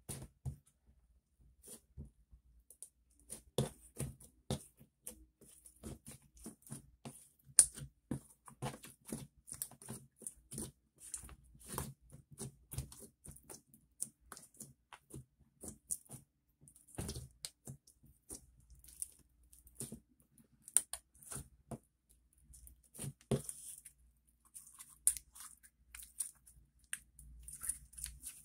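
Glossy slime being pressed, folded and squeezed by hand, making irregular sticky pops and clicks, several a second.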